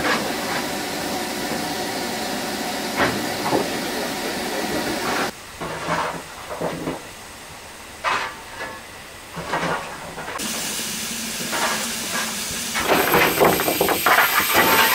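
Steam hissing steadily from a GNR N2 0-6-2 tank locomotive standing in steam. It drops away suddenly about five seconds in, leaving a quieter stretch with a few short noises, and the hiss returns a few seconds later. Near the end comes a run of metallic clattering as the fire is worked with a fire iron at the open firebox.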